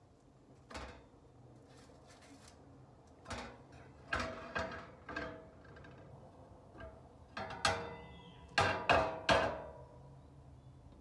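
Ceramic plates clinking and knocking as they are handled and set down: a string of sharp knocks with brief ringing, the loudest ones in a quick cluster near the end.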